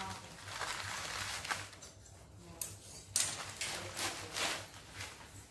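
Scissors cutting through a plastic courier mailer bag, then the crinkling and rustling of the plastic as the bag is pulled open, with a few sharp crackles from about halfway on.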